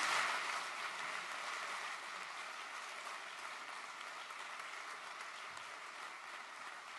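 Audience applauding, loudest at first and settling within about two seconds to a steady level.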